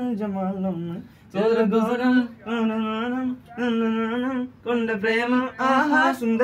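A man singing a slow wordless melody: about six held notes, each roughly a second long with a slight waver in pitch, broken by short pauses for breath.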